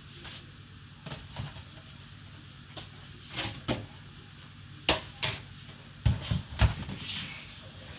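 Knife and fork knocking and scraping on a plastic cutting board while cutting cooked meat: a string of irregular taps and clicks, with the heaviest thuds about six seconds in.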